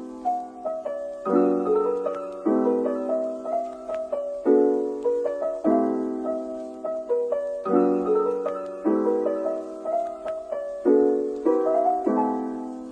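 Background piano music: soft repeating chords and arpeggiated notes, each struck and left to fade.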